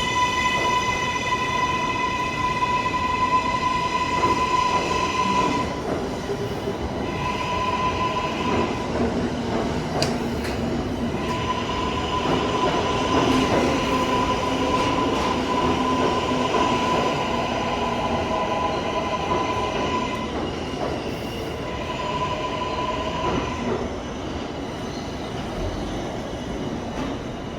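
New York City Subway L train running through the tunnel: a steady rumble of wheels on rails, with a high-pitched steady squeal that comes and goes in several stretches.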